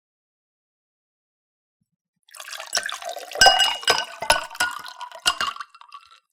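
Water poured into a cup, starting a little over two seconds in and stopping just before the end, with splashing and ringing from the cup as it fills.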